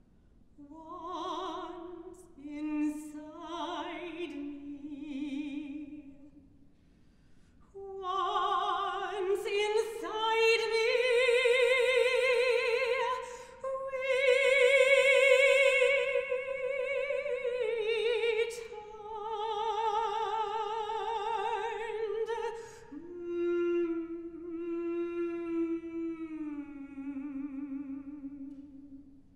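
A mezzo-soprano sings unaccompanied, with a wide vibrato. A low phrase comes first, then a short pause, then loud high held notes that glide upward about ten seconds in. Near the end a softer, lower phrase slides downward.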